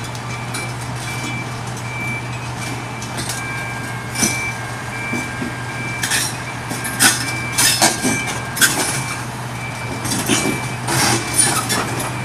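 Kobelco tracked excavator's diesel engine running steadily while its steel tracks clank and knock against the rails as it crawls over them, the sharp clanks coming mostly in the second half. A short high beep repeats in the background.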